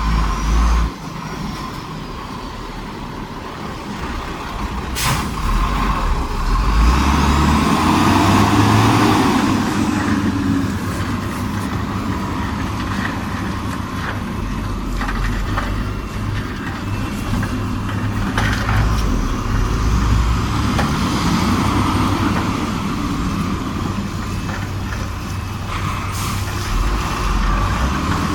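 Heavy earthmoving machinery's diesel engine running under load, swelling louder twice, with a few sharp metallic clanks.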